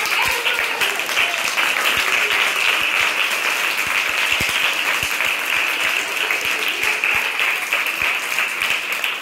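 A roomful of schoolchildren applauding: dense, steady clapping.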